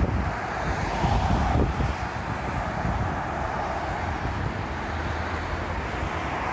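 Steady motorway traffic: cars passing at speed, a continuous rush of tyres and engines with one car swelling louder about a second in, and wind buffeting the microphone.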